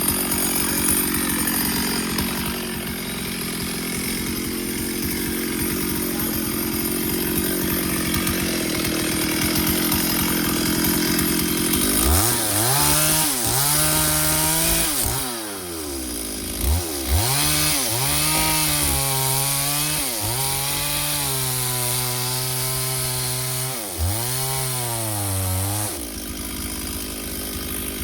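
Stihl 070 two-stroke chainsaw cutting wood, running steadily under load for about twelve seconds. Then its engine pitch repeatedly drops and climbs back several times, and it settles into a steady run again near the end.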